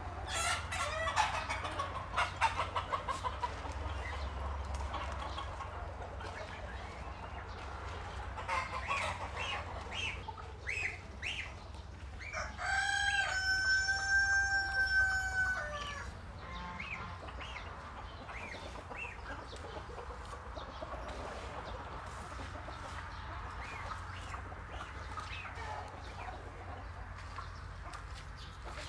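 Chickens clucking on and off, with a rooster crowing once about halfway through in one long, held call.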